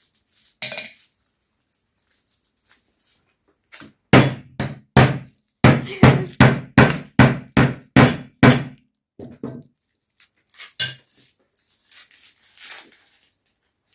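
A meat tenderizer mallet pounding a hard, gum-filled lollipop candy on a wooden cutting board: a quick run of about ten heavy blows, two or three a second, then a few lighter knocks. The candy is not breaking.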